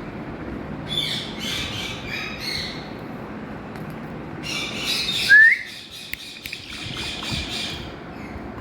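Indian ringneck parakeet squawking in two runs of harsh calls, with one short, loud rising whistle about five seconds in.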